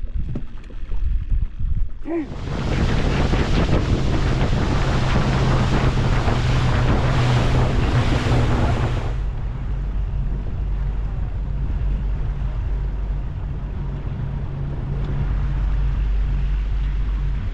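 Boat motor running under way, a steady low hum, with wind buffeting the microphone and water rushing past. The rushing wind and water noise is loudest from about two seconds in until about nine seconds, then eases, leaving mostly the engine hum.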